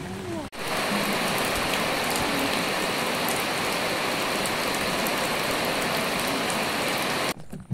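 Steady rain falling in a dense, even hiss. It starts about half a second in and stops abruptly near the end.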